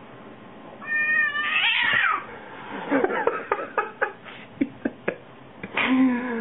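Domestic cat vocalising at its own reflection in a mirror: a drawn-out cry about a second in, a run of short clipped sounds, then a meow that falls in pitch near the end.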